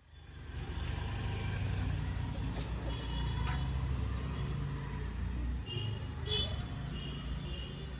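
Low, steady rumble of road traffic going by, easing a little near the end, with a few short faint high tones.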